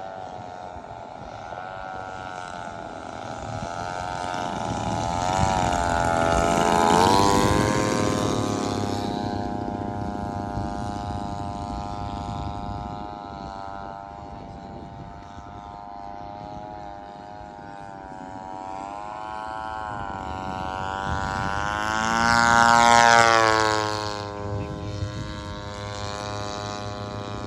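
Two large radio-controlled scale warplanes flying together, among them an A-24 Banshee on a single-cylinder two-stroke gasoline engine, their engines and propellers running steadily. They make two passes, growing loud about seven seconds in and again about twenty-three seconds in, with the pitch dropping as each pass goes by.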